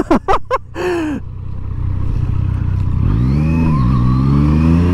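Yamaha MT-09 three-cylinder motorcycle engine running low, then a short rev about three seconds in and a steady rise in pitch as the bike pulls away and accelerates.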